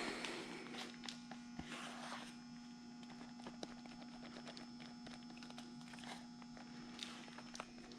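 Faint scraping and light taps of body filler being mixed and spread with a spreader, with two longer scrapes near the start and about two seconds in, over a steady low hum.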